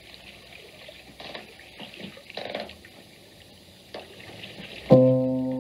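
Faint steady hiss with a few soft rustles, then a piano chord is struck near the end and rings on as the music begins.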